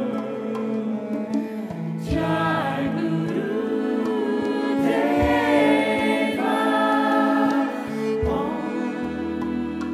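A vocal ensemble singing in close, choir-like harmony over a held low note, with a soft low beat about every three seconds.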